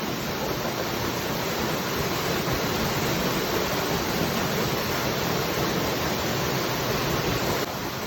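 Waterfall rushing in a steady, even roar of falling water, dropping a little in level near the end.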